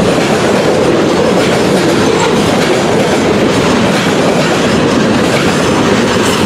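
CN local freight train rolling past at close range: a loud, steady noise of steel wheels running over the rails, with clickety-clack from the rail joints.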